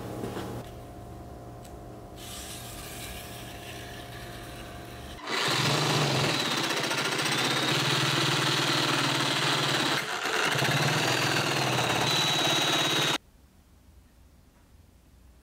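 Power tool cutting into medium-density fibreboard: it starts about five seconds in, runs loudly with a high whine, dips briefly about halfway through, and cuts off abruptly.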